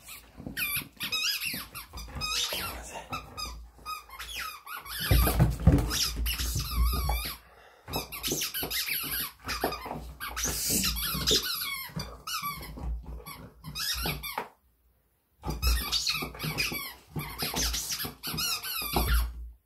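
A dog chewing a squeaky toy, setting off rapid, irregular high squeaks over and over, with a pause of about a second roughly three-quarters of the way through.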